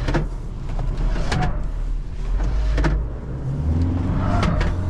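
Isuzu D-Max's 3.0-litre 4JJ turbo-diesel four-cylinder running under hard driving, with a steady low drone that grows stronger about four seconds in and several short sharp sounds along the way, while stability control steps in to stop the rear wheel spinning.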